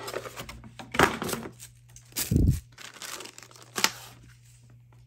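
Plastic packaging crinkling and rustling in short scattered bursts as a plastic tray, cardboard box and bagged cables are handled and moved aside, with a dull thud about two and a half seconds in.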